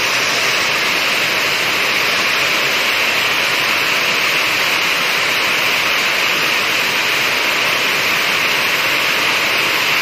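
Water cascading down a stepped weir, a loud, steady rush of spilling water.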